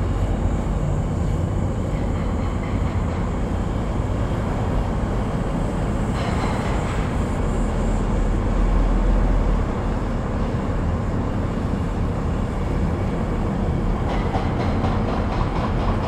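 Steady tyre and road rumble with a low engine drone, heard from inside a moving car.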